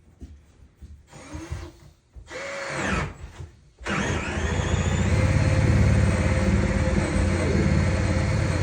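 A small electric motor starts suddenly about four seconds in and runs steadily, with a low hum and a high whine.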